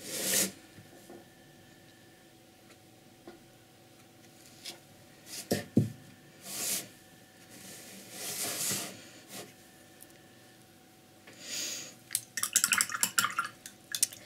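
Handling noises as a painted box is turned and set down on a tabletop: soft scrapes and swishes, a knock about five and a half seconds in, and a run of quick small clicks near the end.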